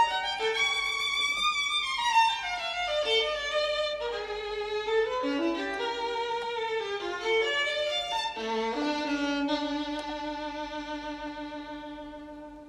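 Violin music: a flowing melodic line with a falling run near the start, ending on a long held note that fades away.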